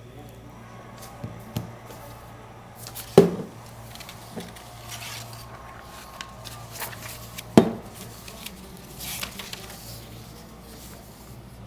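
Kitchen clatter of dishes and utensils being handled and set down during sauce preparation: scattered light clicks and two sharp knocks about four seconds apart, over a steady low hum.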